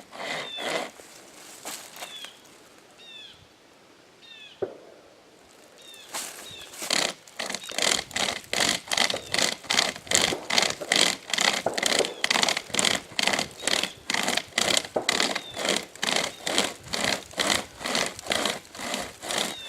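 Manual pocket chainsaw, a hand-pulled chain, sawing through the trunk of a dead oak. It is sparse for the first few seconds, then settles into a steady rasping back-and-forth rhythm of about two to three strokes a second from about six seconds in.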